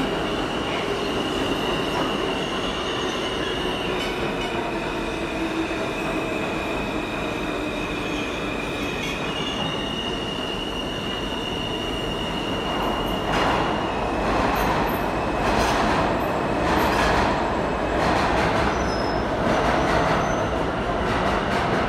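New York City subway Alstom R160 train running through the station: steady rail noise with a high whine that steps up or down in pitch a few times. About two-thirds of the way in, sharp clacks begin, roughly one a second, as the wheels pass over rail joints.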